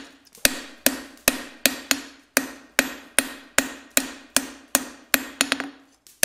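Hand hammer striking a red-hot steel bar on an anvil, about two and a half blows a second, each blow followed by a short ringing note from the anvil. A couple of quicker, lighter taps come near the end. These are finishing blows, tidying up the flattened end of the bar.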